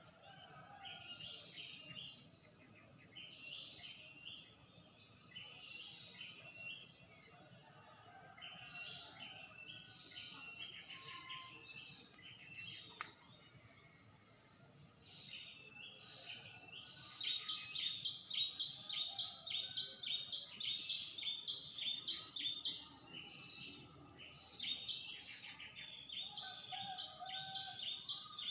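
A steady, high-pitched insect drone, with repeated bursts of quick bird chirps that come thickest and loudest in the middle of the stretch.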